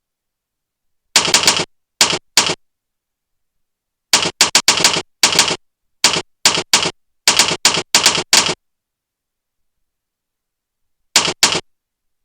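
Keystroke sound effects from the Jingle Keyboard program, played back as keys are typed: clusters of sharp clicks in bursts, about a second in, again from about four to eight and a half seconds in, and once more near the end, with dead silence between.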